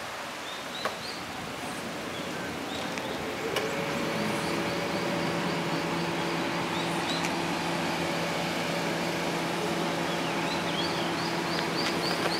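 Small birds chirping in quick repeated short notes over outdoor background noise, with a steady mechanical hum setting in about three and a half seconds in.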